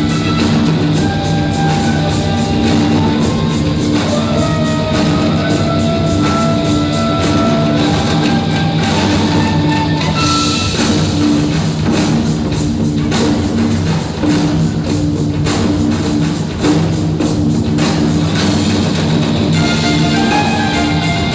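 Loud live rock music: a drum kit played with dense, rapid hits over held guitar notes.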